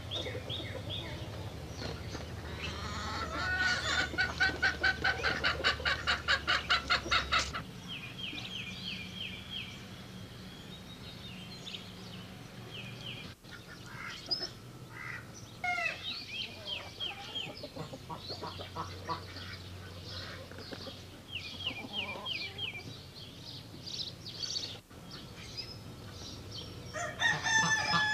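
Domestic fowl calling: a loud run of rapid repeated calls lasting several seconds, then short runs of high chirping notes, and a second run of loud calls near the end.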